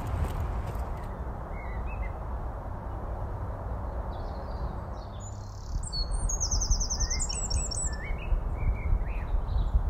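Woodland birds singing: a few short chirps, then a fast high trill about six seconds in, followed by more chirps, over a steady low rumble.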